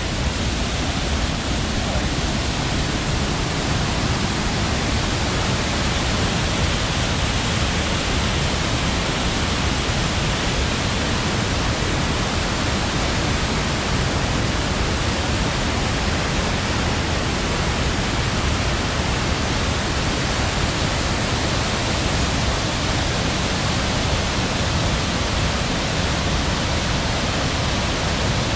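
Rushing water: a loud, steady, even rush with no breaks or changes.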